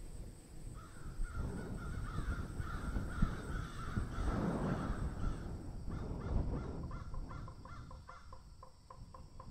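Harsh, crow-like bird calls: a wavering stretch of caws, then a quick run of short notes, about four a second, that fades out near the end.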